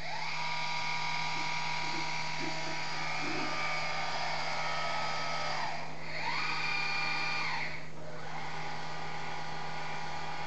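Celestron CPC1100 telescope's fork-mount drive motors slewing: a whine that rises as the motors speed up, holds steady, then winds down about six seconds in. A second, shorter slew follows, rising and falling again and ending about eight seconds in.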